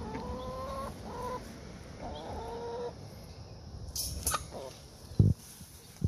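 Domestic hens calling: three drawn-out, fairly level-pitched calls in the first three seconds, followed by a couple of sharp clicks and a low thump later on.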